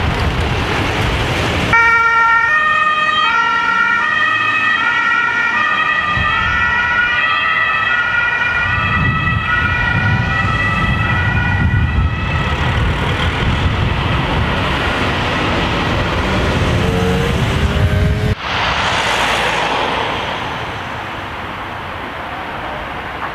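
German two-tone emergency vehicle horns (Martinshorn) sounding their alternating high and low notes over the engine and tyre noise of passing vehicles; they stop about halfway through. After that only traffic noise remains, and near the end a vehicle rushes past.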